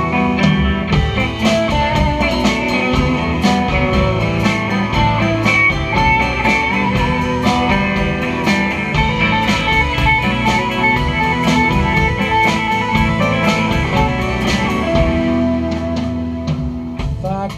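Live band playing an instrumental break: electric guitars over a drum kit keeping a steady beat, with no singing.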